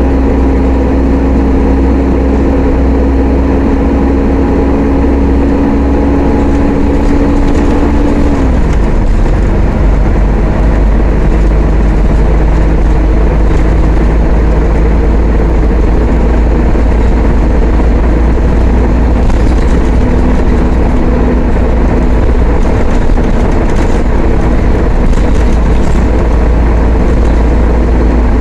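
Mercedes-Benz O500-UA articulated city bus engine running under way, its note dropping sharply about eight seconds in as the ZF automatic gearbox shifts up, then running steadily.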